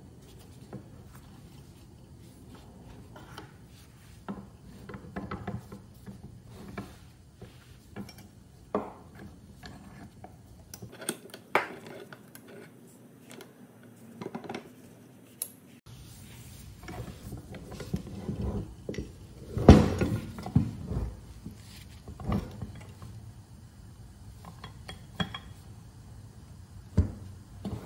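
Irregular metal clanks, clicks and scrapes of an old bench vise being handled and taken apart on a wooden workbench, as its jaws, screw handle and swivel base knock and rub together. The loudest clanks come about twenty seconds in.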